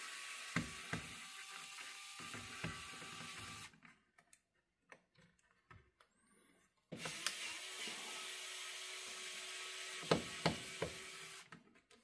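Pen-style electric precision screwdriver running, backing out a small Phillips screw from a laptop's bottom cover: a steady motor whine with a few sharp clicks. It runs for about three and a half seconds, stops, and runs again for about four and a half seconds.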